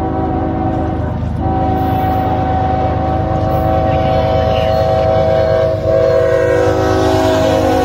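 Norfolk Southern freight locomotive's air horn blowing long blasts for the grade crossing, over the low rumble of the diesel engines. The horn breaks briefly about a second in, then holds, and its pitch drops a little around six seconds in as the lead locomotive comes past.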